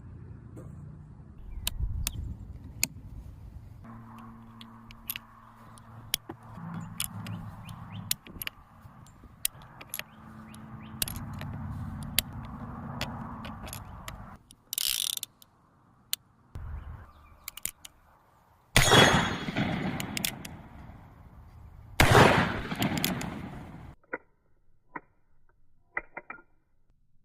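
Many sharp mechanical clicks and clacks, as of a pistol being handled, over a faint low hum. Two longer, louder bursts of noise follow, about two-thirds of the way through.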